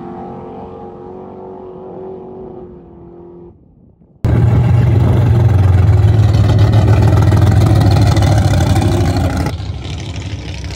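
Drag cars' engines fading as they pull away down the strip, then, after an abrupt cut about four seconds in, a loud close-up drag car engine running at low speed as the car rolls toward the start line, dropping off again near the end.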